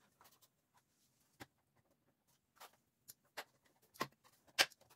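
A handful of separate light clicks and knocks from plastic dash trim parts being handled. They come at irregular intervals, and the sharpest comes near the end.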